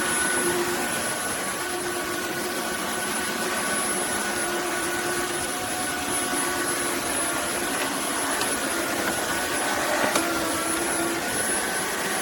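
Roborock F25 GT cordless wet-dry vacuum mop running: a steady motor whine with a high-pitched tone over the noise of the suction and rolling brush. A brief click comes about ten seconds in.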